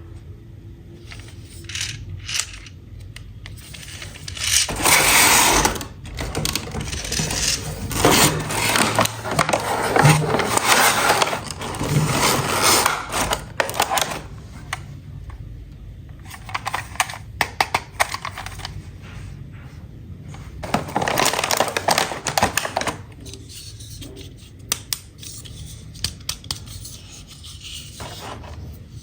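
Toy packaging and plastic toy pieces being handled: irregular bursts of scraping and rustling with scattered clicks and small knocks.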